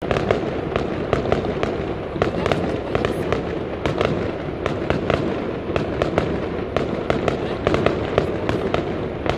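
Fireworks going off in quick succession: dense cracks and pops, several a second, over a steady hiss.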